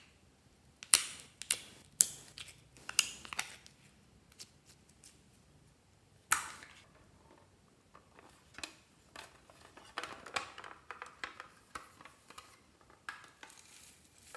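Hard plastic containers handled: a few sharp plastic clicks and knocks in the first few seconds and another about six seconds in. Near the end comes a run of small light ticks and rattles as sequins and glitter are shaken out of a container.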